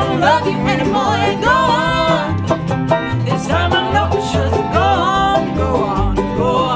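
Bluegrass string band playing together: bowed fiddle, banjo, mandolin, acoustic guitar and upright bass, the bass plucking steady low notes under sliding fiddle lines.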